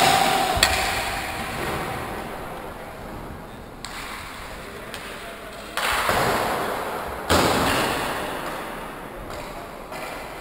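Inline hockey play: sharp knocks of sticks on the puck and bangs of the puck striking the rink boards, each ringing out in a large hall. The loudest bangs come about six and seven seconds in.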